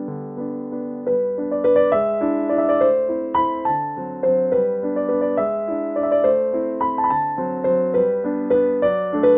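Background piano music: a gentle melody played over held chords, the notes growing busier about a second in.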